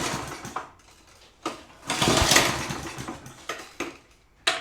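Two pulls on the recoil starter of a Briggs & Stratton lawn-mower engine, cranking it without it catching and running, then a sharp click near the end. The engine tends to die and need priming again.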